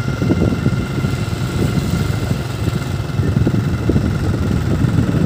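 Motorbike engine running steadily under way, with a dense low rumble of wind on the microphone.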